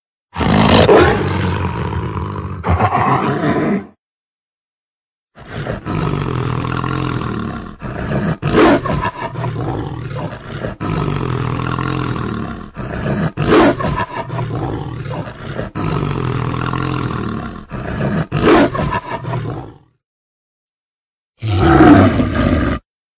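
Monster sound effects of a were-beast roaring and growling, played as separate clips with dead silence between them: a roar of about three and a half seconds, then a long growling passage with repeated sharp roaring peaks, and a short roar near the end.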